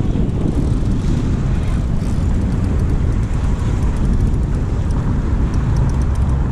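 Wind buffeting the microphone: a loud, steady low rumble, with a low hum coming in near the end.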